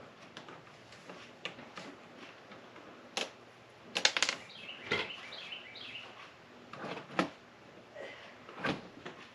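Small plastic Lego Technic pieces clicking as they are handled and snapped together: scattered sharp clicks, with a quick cluster about four seconds in.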